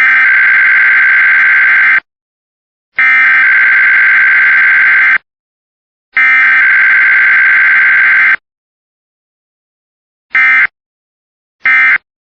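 Emergency Alert System SAME digital header bursts of an EAS Required Weekly Test: three buzzy data tones of about two seconds each, a second apart. Near the end come two short bursts of the same sound, the end-of-message signal.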